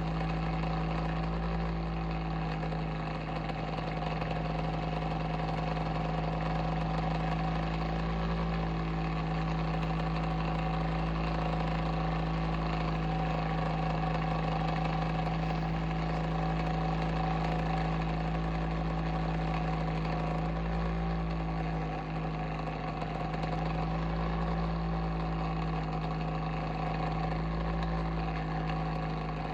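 Bionaire ceramic tower heater running with a steady droning hum and buzz, the pitch wavering slightly now and then. Its owner calls the sound abnormal.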